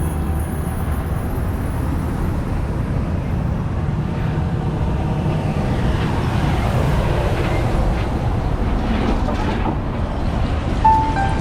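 Steady low rumbling street noise, like traffic, swelling slightly midway; a musical note comes in just before the end.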